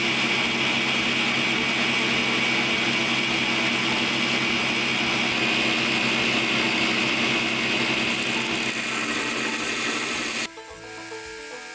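Belt grinder running while a knife blade cut from lawn mower blade steel is ground against its belt in a bevel jig: a steady motor hum under a loud, even grinding hiss. It cuts off suddenly about ten and a half seconds in, leaving background music.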